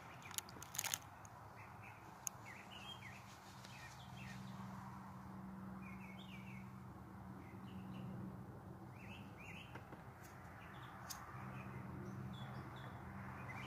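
Small birds chirping, short calls scattered throughout, over a faint low hum that comes and goes. A few clicks in the first second.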